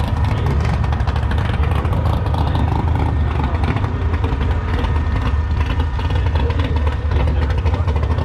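Car engine idling steadily with a low rumble, holding an even pitch without revving.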